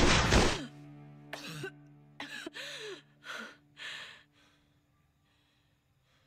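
The tail of a crash dies away in the first half-second. Then a woman gasps and pants in short, ragged breaths over a low, steady musical drone, and it falls quiet after about four seconds.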